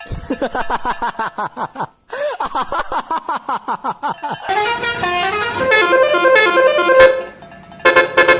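Multi-tone 'telolet' bus horn: rapid chirping toots with a short break about two seconds in, then a stepped multi-note tune, and a last burst after a brief pause near the end.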